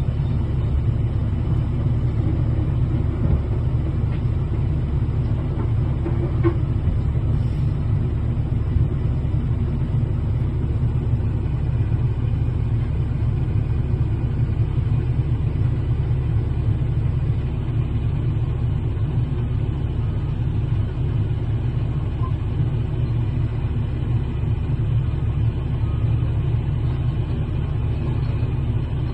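Heavy earthmoving machine's diesel engine running steadily, a deep even rumble that holds the same pitch throughout.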